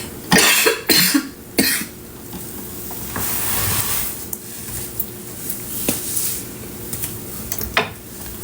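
A woman coughing hard from a cold: three coughs in quick succession in the first two seconds, followed by quieter small knocks and handling sounds and one sharp tick near the end.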